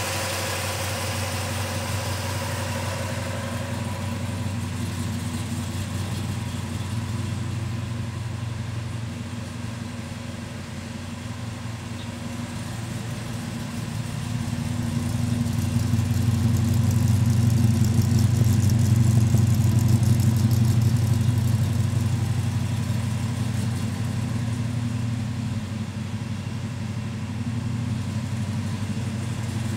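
1969 Dodge Charger R/T's 440 big-block V8 idling with a steady low note, growing louder for several seconds midway through and then settling back.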